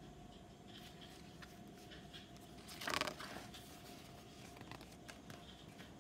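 A page of a picture book being turned: a brief papery rustle about halfway through, with a few small handling clicks. Under it is faint room tone with a steady hum.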